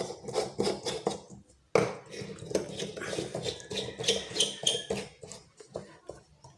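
Screw-base light bulbs being twisted into plastic lampholders: quick scraping and clicking of the bulbs' threaded bases turning in the sockets, with a sharper knock a little under two seconds in.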